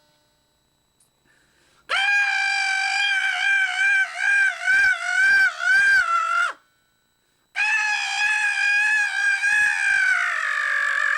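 A person's voice holding a very high, shrill note with a wavering vibrato for about four and a half seconds. After a short pause, a second high held note slides downward in pitch near the end.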